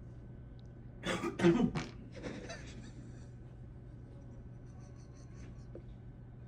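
A short burst of a person's voice about a second in, three or four quick strokes in under a second, over a low steady hum.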